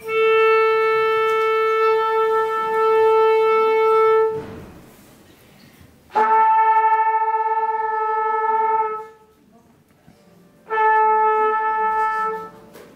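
Trumpets and saxophones tuning: the same note held three times, for about four, three and two seconds, with short pauses between.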